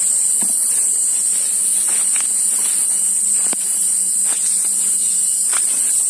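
A steady, high-pitched drone of forest insects, with footsteps crunching on dry leaf litter and brushing through undergrowth every second or so.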